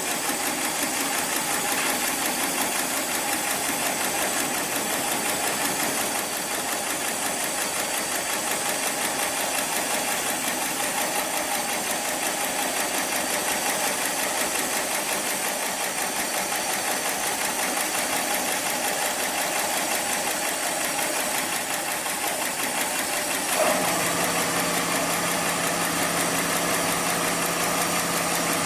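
Heavy-duty programmable pattern sewing machine running steadily, stitching thick polyester or nylon sling webbing. About 24 seconds in the sound changes, and a steady hum joins the stitching.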